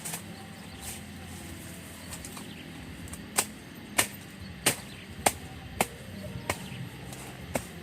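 Chopping into wood while building a shelter: a few light knocks, then from about three seconds in a steady run of sharp chopping strikes, roughly one every half to two-thirds of a second.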